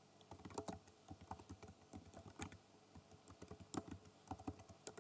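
Computer keyboard typing: a run of quick, uneven key clicks as a shell command is typed.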